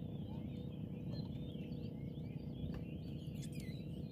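A dense chorus of many high chirping calls overlapping continuously, like a flock of birds, over a steady low hum.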